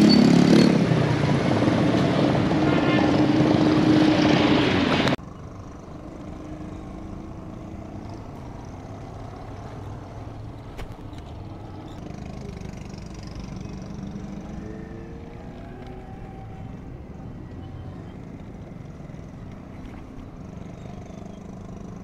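Road traffic: a loud, close vehicle engine with a steady low hum for about five seconds, then an abrupt cut to quieter traffic with engines passing farther off, their pitch rising and falling.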